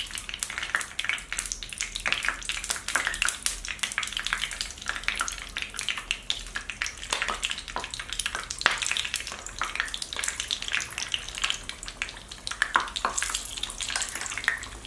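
Marinated chicken pieces deep-frying in hot oil in a kadai, a dense, continuous sizzle and crackle of many small pops as the pieces are lowered in one at a time.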